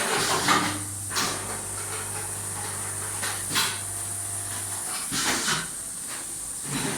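Automatic packaging line machinery running. A steady low motor hum starts about a second in and cuts off near five seconds, over a constant high-pitched whine. Several short hissing, clacking bursts are heard, typical of pneumatic actuators cycling.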